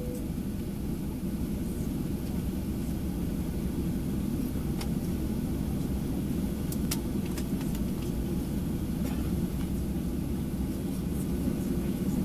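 Steady low rumble inside the cabin of a Boeing 737-800, with a few faint clicks about five and seven seconds in.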